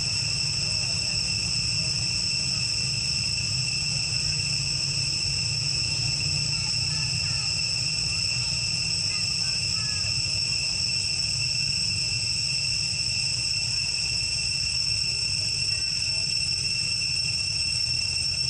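Insects droning: a continuous high-pitched whine that holds one steady pitch, over a low steady hum.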